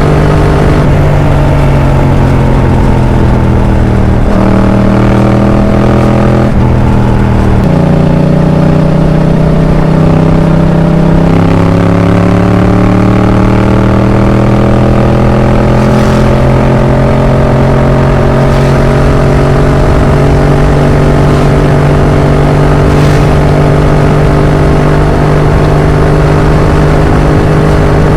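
Yamaha MT-07's parallel-twin engine through an Arrow aftermarket exhaust, heard from the bike while riding. The engine note falls over the first few seconds, jumps up abruptly about eight seconds in, then climbs slowly and steadily as the bike pulls in gear.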